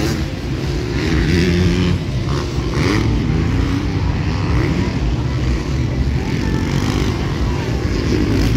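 Motocross bikes racing on the track, several engines revving up and down so that the pitch keeps rising and falling.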